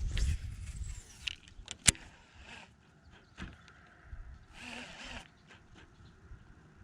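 Scattered handling noises: a rustle at the start, a sharp click about two seconds in, a softer knock a little later, and another brief rustle near the end.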